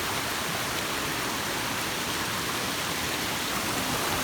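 Steady rushing water, an even unbroken hiss with no distinct splashes or drops.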